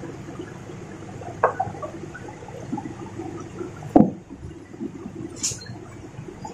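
Excavator working among large rocks: a steady machine rumble with scattered knocks, a sharp one about a second and a half in and one heavy thud about four seconds in.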